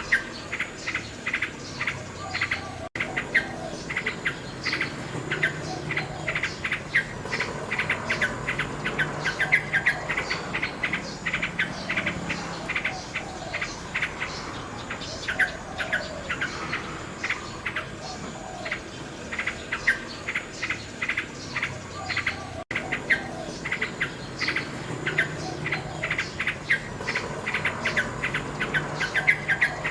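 Common nightingale singing: rapid runs of repeated notes and phrases, with a steady high insect-like drone underneath. The sound cuts out for an instant twice, about 3 seconds in and again near 23 seconds.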